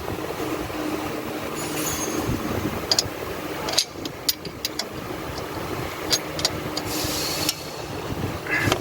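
Metal clicks and clinks of hand tools working on intake manifold bolts, scattered irregularly over a steady low mechanical hum.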